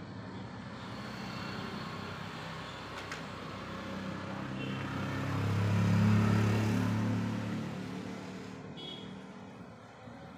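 A motor vehicle passing by, growing louder to a peak about two-thirds of the way through and then fading away.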